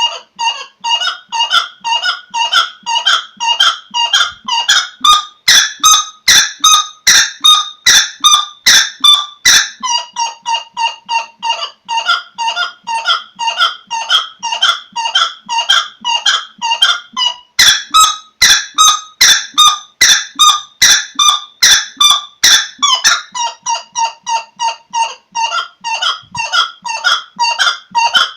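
A bird calling over and over in short, sharp, pitched notes, about three a second, in an unbroken series.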